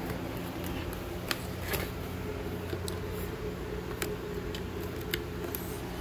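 A steady low electrical hum, with a handful of short sharp clicks and taps at irregular moments, like handling of equipment.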